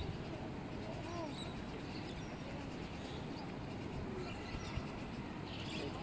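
Steady outdoor background noise with scattered faint short chirps and calls.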